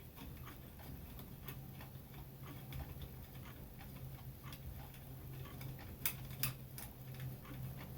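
Faint, irregular small metal clicks and ticks of the screws on a ceiling fan light kit's globe fitter being turned loose, with a couple of sharper clicks about six seconds in. A steady low hum lies underneath.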